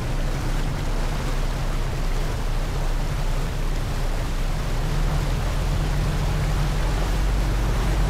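Passenger ferry's engines droning steadily under the rush of its wake and wind on the microphone, the low drone growing a little louder about five seconds in.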